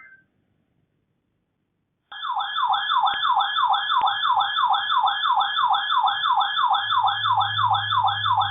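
Electronic warbling alert siren from a weather alert radio's alarm. It starts after a brief silence and repeats a falling sweep about three times a second, with a low hum joining near the end.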